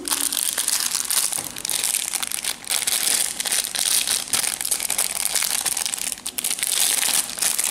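Thin clear plastic bag crinkling continuously as it is squeezed and turned in the hands, with small plastic toy pieces shifting inside.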